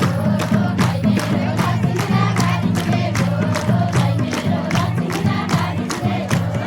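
Nepali Teej folk song with group singing over a steady, fast drum beat, and crowd voices mixed in.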